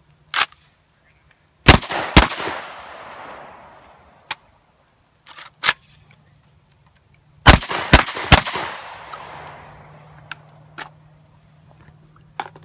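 Catamount Fury 12-gauge semi-automatic shotgun firing: two quick shots about two seconds in, then three rapid shots about five seconds later, each burst trailing off in a long echo. A sharp click comes just before the first pair.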